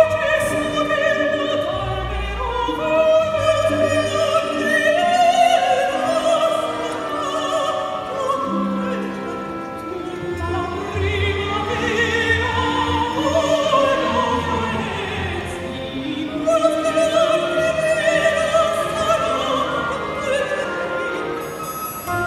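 Two female singers in an operatic duet with a live symphony orchestra: sustained sung lines with vibrato over bowed strings.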